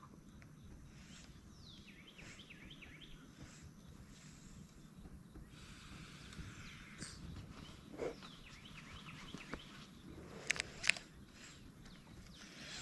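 Faint outdoor ambience with a bird singing, series of quick falling chirps, twice. Two sharp clicks near the end are the loudest sounds.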